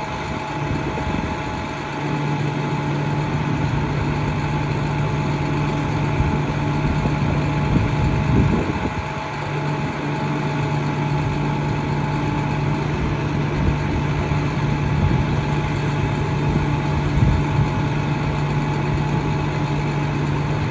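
The International 4300's MaxxForce DT diesel runs at a steady idle while the Altec aerial boom is lowered to its stowed position. A steady hum from the running machinery firms up about two seconds in and breaks off briefly around eight seconds in.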